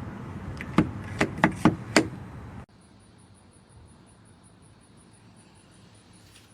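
Several sharp clicks of a smart door lock's handle and latch mechanism being worked, five in quick succession. The sound then cuts off suddenly, leaving only a faint hiss.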